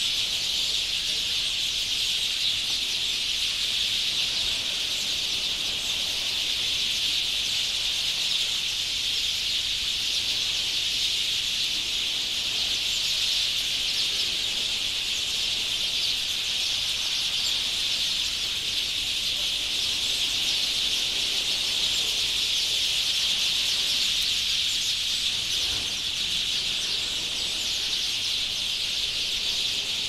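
A large flock of small birds chattering together in the trees as they settle to roost at dusk: a dense, steady mass of high-pitched calls with no pause.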